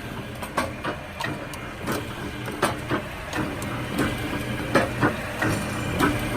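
Paper hole-drilling machine running, a steady motor hum with sharp mechanical clicks and knocks about twice a second.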